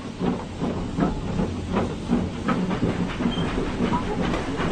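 Steam locomotive chuffing in an even rhythm of about two to three beats a second, with steady hissing.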